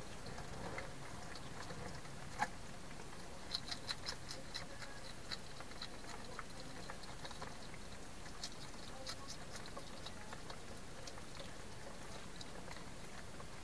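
A hedgehog moving about in a plastic feeding box at the food bowl makes a scatter of small, sharp clicks and taps over a faint hiss. The clicks are thickest a few seconds in.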